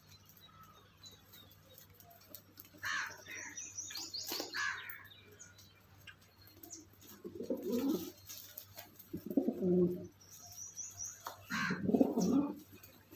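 Domestic pigeons cooing: several low coos in the second half, with bursts of higher chirping calls a few seconds in and again shortly before the last coos.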